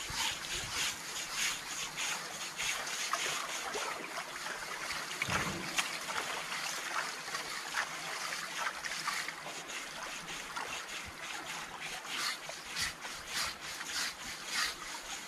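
Water sloshing, splashing and trickling around an elephant lying in a shallow bathing pool as it is washed by hand, with many short splashy strokes. A single low thud about five seconds in.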